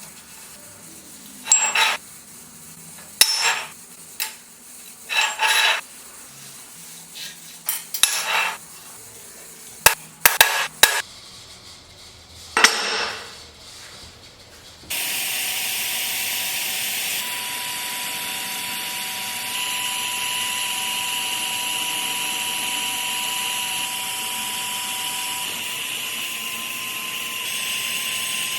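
A series of short metal clinks and scraping strokes on steel parts. About halfway through, a power tool starts and runs steadily with a constant whine.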